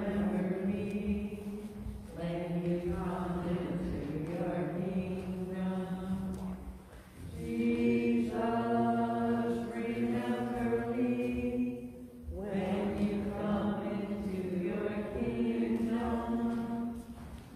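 Slow sung chant in long held notes, in phrases of about five seconds with a short breath between each, sung as a communion meditation during Mass.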